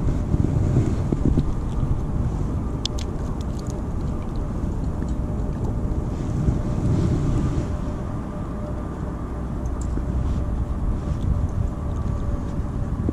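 Wind buffeting the microphone: a steady low rumble with a faint steady hum underneath, and a few light clicks about three seconds in.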